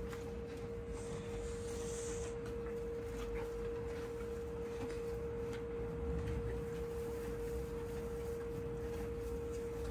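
A steady hum holding one unwavering mid-pitched tone, over a low rumble, with faint soft crunches of a pony chewing hay.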